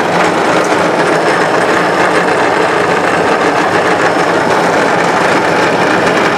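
Steady mechanical whirring and rushing of a chiva voladora cable ride in motion, its trolley running along the steel cable.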